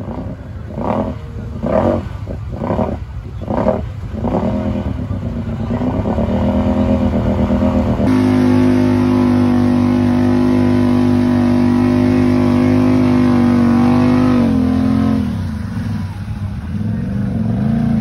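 Can-Am Maverick side-by-side engine revving hard while stuck in deep mud: about six quick blips of the throttle, then revs climb and are held high and steady for several seconds before dropping back to a lower, uneven note.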